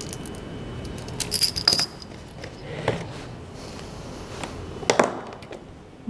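Brief metallic jingling and clinks about a second in, over a steady low hum, then a single sharp click near the end.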